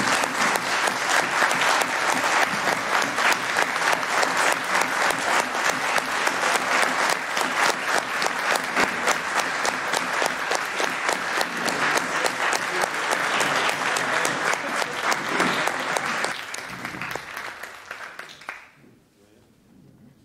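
A roomful of people applauding with dense, sustained clapping that thins out about sixteen seconds in and dies away a couple of seconds later.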